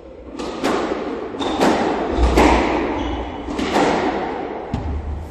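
Squash rally: the ball struck by rackets and hitting the court walls in a series of sharp, echoing knocks, about seven in all, with a couple of brief shoe squeaks on the wooden floor.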